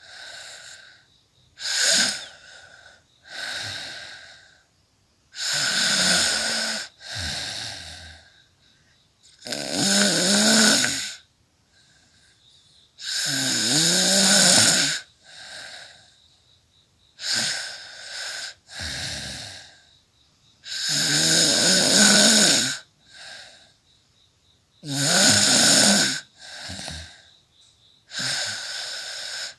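A woman snoring in her sleep: a loud, rasping snore followed by a softer breath, repeating steadily about every four seconds.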